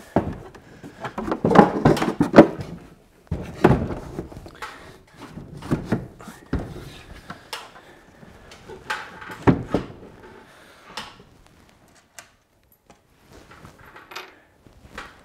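Wooden cabinet knocking and bumping against a wall as it is lifted and set in place: a string of knocks, loudest about two seconds in, thinning to a few soft taps near the end.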